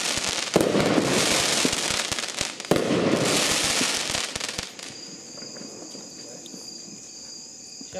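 A 1-inch, nine-shot consumer firework cake ("Snowman") firing its last shots. There are two bursts, about half a second and about three seconds in, each a sharp bang followed by about two seconds of dense crackling. The crackle dies away about five seconds in, leaving a quieter steady background.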